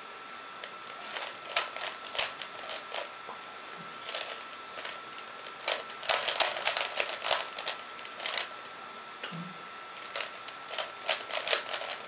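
The plastic layers of a 3x3 Rubik's cube being turned quickly by hand: runs of rapid clicking and clacking with short pauses between them, the densest run about six to seven and a half seconds in.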